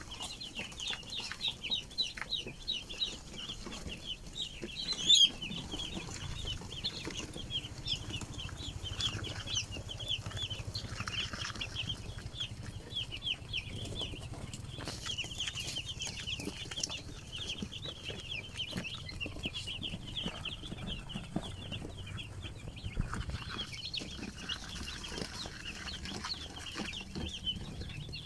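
A large flock of chicks peeping continuously, a dense chorus of short high chirps. A single sharp knock sounds about five seconds in.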